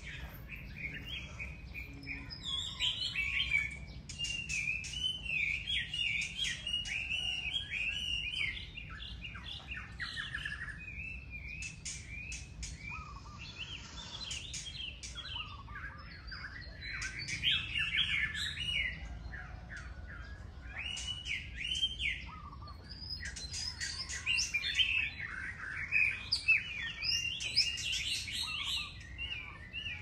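Many birds chirping and twittering together in a dense chorus, short calls overlapping almost without a break. The chorus swells several times, busiest about a quarter of the way in, a little past the middle, and near the end.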